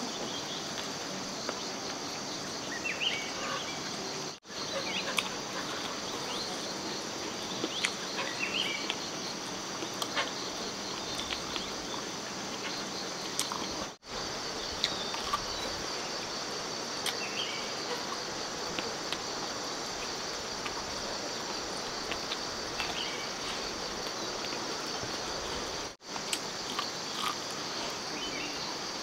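Steady high-pitched chorus of insects over outdoor background noise, with scattered light clicks and a few short chirps. The sound cuts out for an instant three times.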